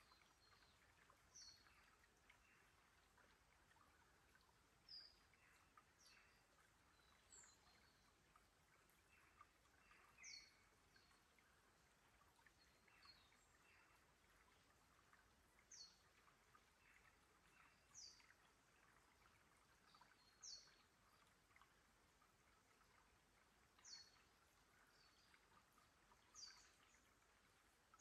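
Faint forest ambience: a bird gives short, high chirps, each a quick falling note, about every two to three seconds, over a soft trickle of shallow water among creek stones.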